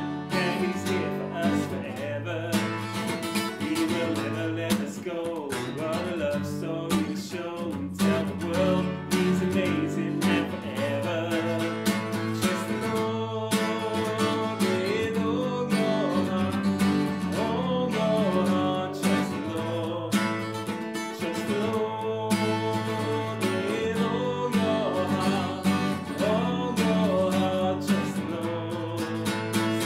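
Upbeat children's worship song: singing over a steadily strummed acoustic guitar.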